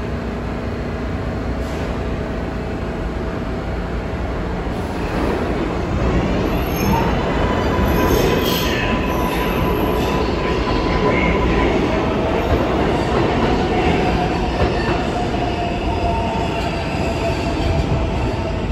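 New York City Subway R142A train pulling out of the station and picking up speed, the rumble of its wheels growing louder about five seconds in. Thin squealing tones ride over the rumble from about the middle onward.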